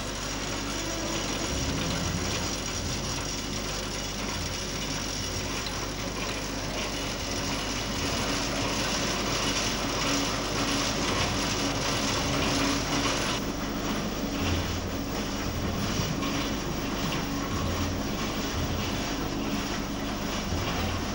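Old textile machinery in a wool mill running: a steady mechanical clatter of gears and rattling parts. The sound changes slightly about thirteen seconds in.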